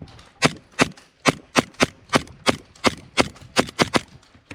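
Airsoft gun firing single shots, about a dozen sharp cracks in quick succession that come faster toward the end.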